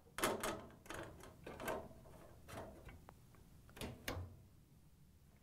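Sheet-metal support bracket being set onto a dryer cabinet and its tab locked into a cutout: a series of light, irregular metal clicks and knocks.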